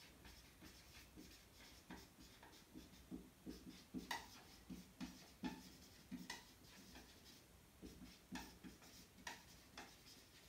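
Dry-erase marker writing on a whiteboard: faint, irregular squeaks and taps of the felt tip against the board as words are written.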